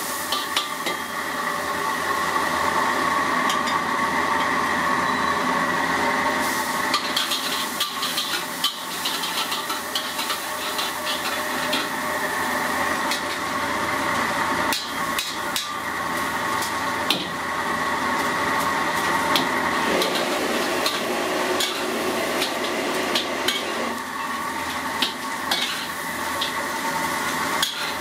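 Metal spatula scraping and clanking against a wok in quick irregular knocks while fried mantis shrimp are stir-fried, over a steady sizzle of hot oil.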